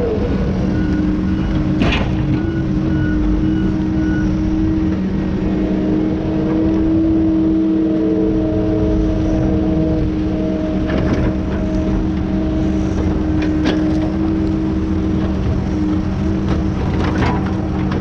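An engine running steadily at a constant speed, with a few sharp knocks or rattles, the strongest about two seconds in.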